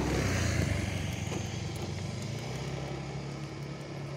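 A passing motor vehicle's engine, loud at first and fading steadily as it moves away.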